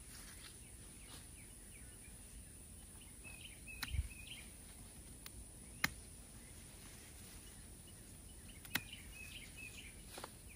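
Small birds twittering in two short bursts of chirps, about three seconds in and again near nine seconds, over faint background noise. A few sharp clicks are heard, the loudest about six seconds in.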